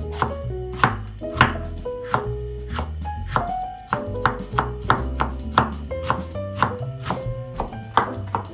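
Chef's knife chopping a green bell pepper on a wooden cutting board: sharp knife strikes, about three a second, over background music.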